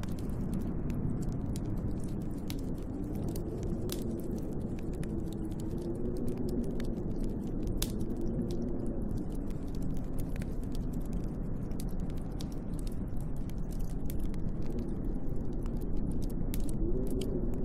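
Storm wind howling in slow rising and falling tones over a steady low rush, with a wood fire crackling and popping in frequent small snaps throughout.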